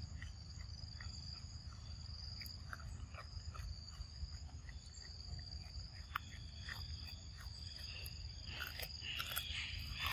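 Steady high-pitched insect drone over a low rumble, with scattered faint clicks. About eight seconds in comes a cluster of crisp clicks as a macaque bites and chews a piece of green mango.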